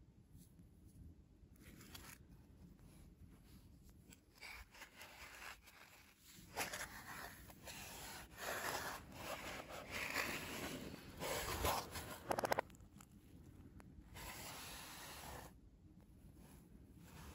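Cotton-gloved hands handling a cardboard shipping box and the white Apple Watch box inside it: irregular rubbing, scraping and rustling of glove on cardboard, faint at first and busier in the middle, with a few sharp clicks.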